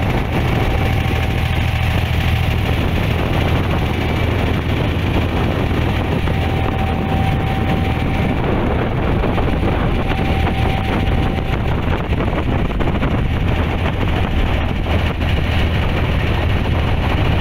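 Steady low drone of a wooden abra water taxi's engine running under way, mixed with wind and water noise; a faint thin whine comes and goes.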